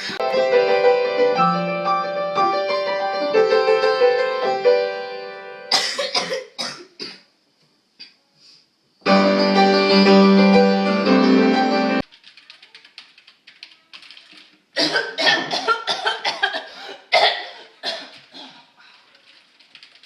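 Music with sustained stepped notes, broken by a few sharp coughs about six seconds in; a second loud stretch of music cuts off abruptly about twelve seconds in, followed by a run of coughing.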